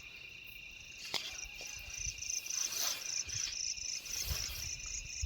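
Crickets chirping at night: a steady high trill with a faster pulsed chirp above it at about four pulses a second, which grows clearer from about two seconds in. A single click comes about a second in.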